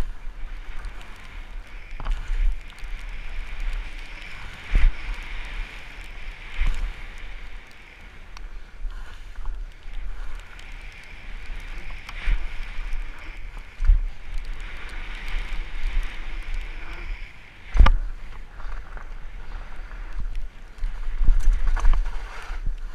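Fat bike descending a wet dirt trail at speed, heard from a helmet camera: a steady rush of wind and tyre noise, broken by sharp knocks and jolts as the bike hits bumps, the loudest about 18 seconds in and a burst of them near the end.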